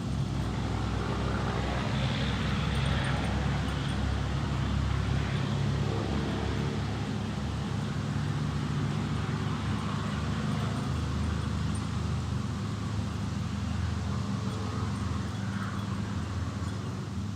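Steady low rumble of a vehicle engine running, with a faint haze of road noise over it.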